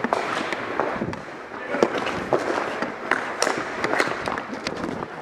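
Ball hockey sticks and ball clacking on the court in a rapid, irregular series of sharp knocks.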